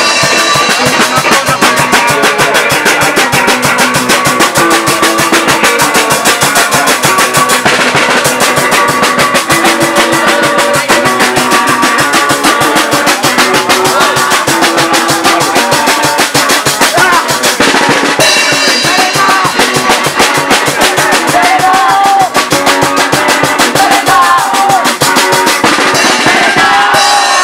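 Live punk band playing loud and fast: a drum kit pounds a rapid, driving beat under guitars, with vocals shouted into a microphone. The cymbals drop out briefly about eight and eighteen seconds in.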